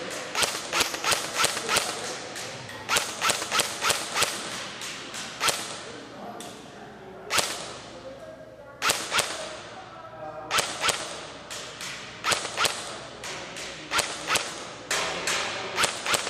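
Double Eagle M89 UMP electric airsoft gun firing single shots in quick strings of several, a few per second, with short pauses between strings. Each shot is a sharp crack with a short echo.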